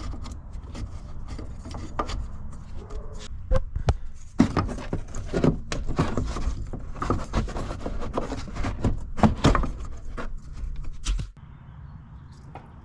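Irregular knocks and clunks of hand work on a car's front suspension, fitting wooden spacers into the coil springs, over a steady low rumble. The rumble cuts off about eleven seconds in.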